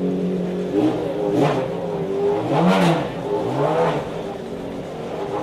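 McLaren F1 GTR LongTail's naturally aspirated BMW V12 idling during warm-up, blipped four times in quick succession so the pitch rises and falls back each time; the biggest blip comes about halfway through.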